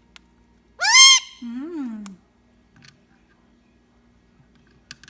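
Indian ringneck parrot giving one loud, shrill squawk about a second in, its pitch rising and then falling, followed at once by a lower, shorter voice-like sound. A few faint clicks are scattered through the rest.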